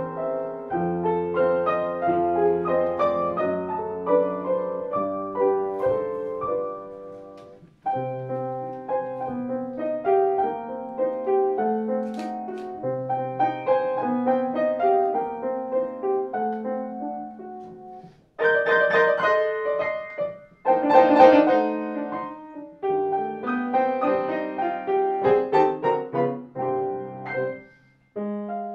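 A piano played four hands, running through a classical piece in short phrases. Brief pauses fall at about 8 and 18 seconds, and a stretch of denser, louder chords comes around 18 to 22 seconds in.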